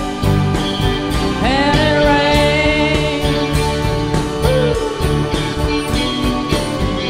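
A live rock band playing an instrumental break: strummed acoustic guitar, bass and keyboards over a steady beat, with a lead line of long held notes that slides up into a note about a second and a half in.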